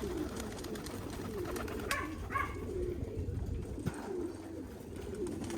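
A flock of racing pigeons cooing together, a continuous low, wavering murmur of many overlapping coos.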